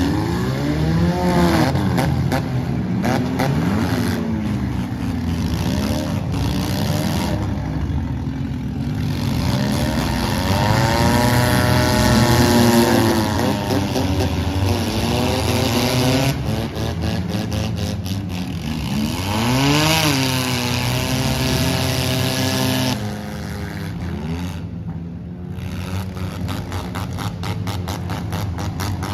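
Several demolition derby cars' engines revving hard at once, their pitches rising and falling as the cars accelerate and push, with scattered sharp crashes of cars hitting each other.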